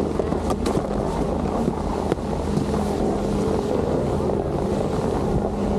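Wind buffeting the microphone of an Insta360 camera: a steady low rumble, with a few faint clicks in the first couple of seconds.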